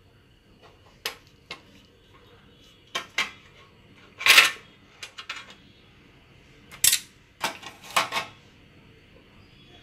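Metal springform cake pan being unlatched and its ring lifted away: a series of short metallic clicks and clanks, the loudest and longest about four seconds in.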